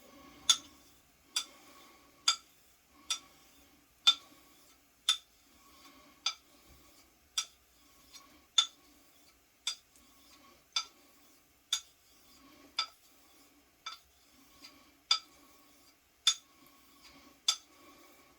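Straight razor (6/8 quarter hollow) being stroked back and forth on a whetstone with slurry. A sharp click comes about once a second as the razor turns over on its spine at the end of each stroke, with a soft gritty swish between the clicks.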